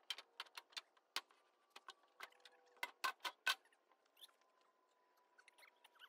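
Sawn pine boards knocking and clacking against each other and the steel bed of a sawmill as they are handled, a series of sharp knocks loudest about three and a half seconds in, over a faint steady hum.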